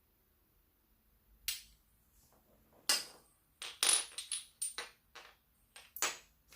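Irregular run of about ten sharp clicks and knocks from hard objects being handled and set down, starting about a second and a half in.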